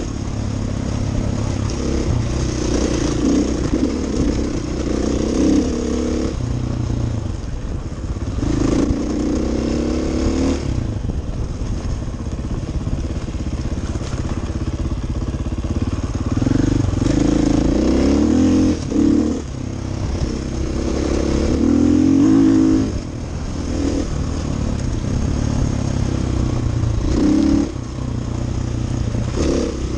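Dirt bike engine running under way on a gravel trail, its revs rising and falling with the throttle and dipping suddenly a few times.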